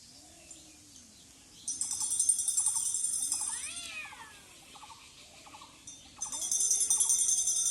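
Cats yowling in long, low, drawn-out calls that rise and fall, with one higher yowl about four seconds in, the growling cries of a cat fight. A loud high jingling, like bells, comes in just under two seconds in and again near the end.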